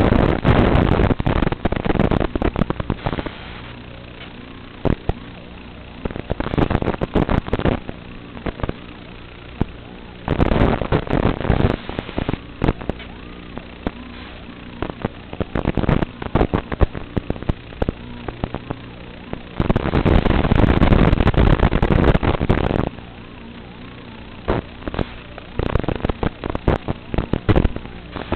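Loud crackling bursts, each lasting one to three seconds, come and go over a steady low hum in the audio of an FPV quadcopter flight recording.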